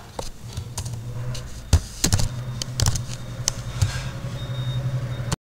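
Irregular clicks of a computer keyboard and mouse, about a dozen scattered keystrokes and button presses, over a low steady hum.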